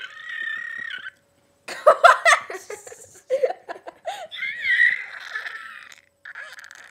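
A boy making high, squeaky bird-like noises with his voice, each held for about a second, broken by loud bursts of laughter about two seconds in.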